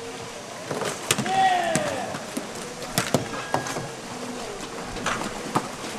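Ambience of a canoe polo warm-up on open water: scattered sharp knocks from paddles, kayaks and ball, and a short falling shout about a second and a half in.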